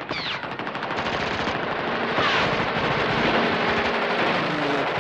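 Battle sound effect of rapid machine-gun fire, a dense continuous rattle of shots, with a couple of short falling whistles.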